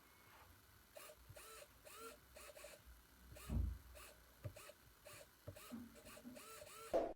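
Small SG90 hobby servo motors whirring faintly in many short bursts, each with a brief rise and fall in pitch, with a low thump about three and a half seconds in.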